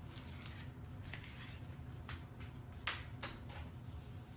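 Scattered light ticks and short scrapes, about one a second, as adhesive vinyl wrap film is worked down onto a mini fridge, over a steady low hum.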